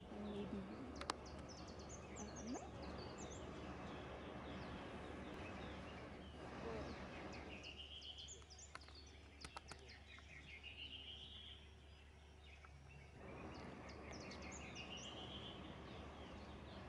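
A distant hot-air balloon burner firing as a steady rushing noise, stopping about six seconds in and starting again abruptly near the end. Over it birds sing at dawn: one repeats a rising run of notes three times, with scattered high chirps.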